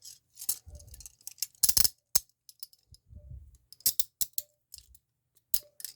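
Metal handcuffs being handled: irregular sharp metallic clicks and clinks of the ratchet and chain, some with a brief ring.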